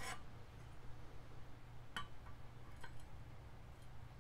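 Light clinks of rusty steel flat bar being set against a cast-iron brake drum: a sharp one at the start, another about two seconds in, then a few fainter ticks. A steady low hum runs underneath.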